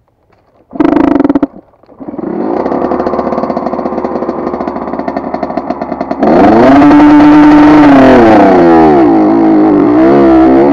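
80cc two-stroke dirt bike engine firing briefly about a second in, dropping out, then catching and running steadily. A little past halfway it gets much louder, revving up, holding high, then dropping back with the throttle blipped up and down.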